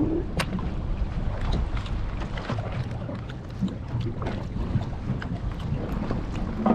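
Wind buffeting the microphone over water slapping against a small boat, with scattered clicks and knocks. The sharpest click comes about half a second in.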